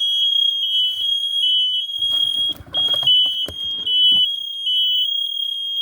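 Several smoke alarms shrieking at once, set off by humidifier steam: overlapping high-pitched piezo tones at two slightly different pitches that alternate and never stop. A brief scuffling noise comes in about two seconds in.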